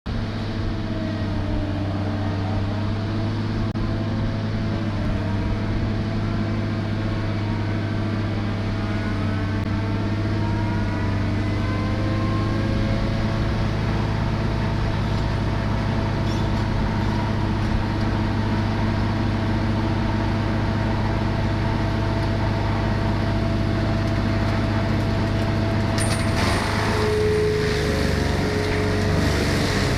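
Engine of a heavy tree-removal machine running steadily, with a faint whine that rises and falls in pitch in the first half. Near the end a rougher, noisier sound joins it.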